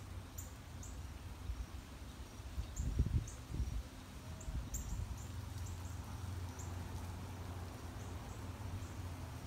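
Outdoor evening ambience: scattered short, high chirps from small creatures over a steady low rumble on the microphone, with a few dull bumps about three seconds in.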